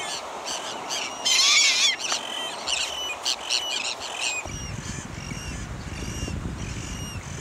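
Gulls calling over and over in short, high calls, loudest in a dense flurry about a second and a half in. From about four and a half seconds in, the calls are fainter over a low rumble.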